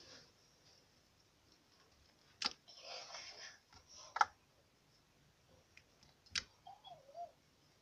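Slime being stretched and pulled up off a table by hand: sticky clicks and pops, three sharp ones about two and a half, four and six and a half seconds in, with soft squishing in between.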